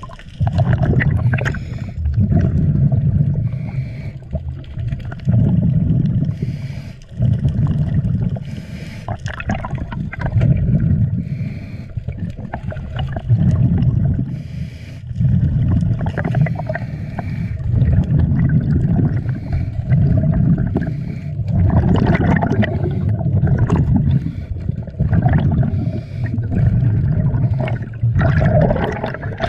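Underwater diver's breathing through a regulator: exhaled bubbles rumble past in surges every two to three seconds, with fainter hissing between them.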